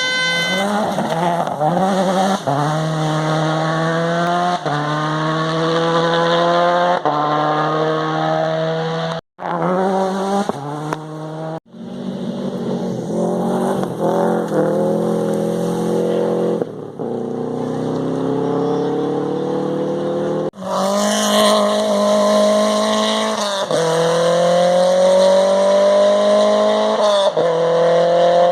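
Rally car engines accelerating hard through the gears. The pitch climbs steadily, then drops back at each shift, over and over, and the sound breaks off abruptly a few times where short clips are cut together.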